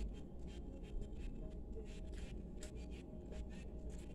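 A person chewing food with wet mouth clicks and smacks, several a second and irregular, over a steady low hum.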